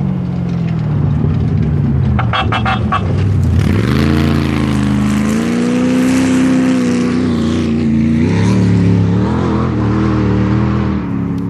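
Off-road race vehicle engine on a dirt course: its pitch falls as it slows, a brief rattle sounds about two seconds in, then it revs up hard about four seconds in and holds a high pitch over a hiss of tyres and dirt, easing off near the end.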